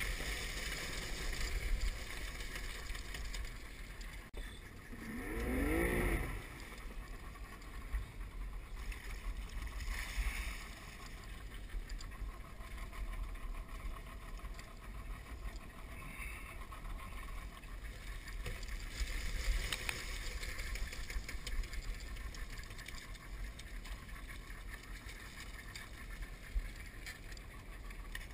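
Muffled outboard motor of a crawfish skiff running steadily under a hiss of wind and water, with a brief rev about five seconds in.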